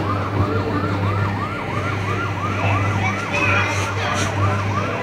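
Electronic siren of a children's ride-on toy fire truck, warbling in a fast, even cycle of about four sweeps a second over a steady low hum.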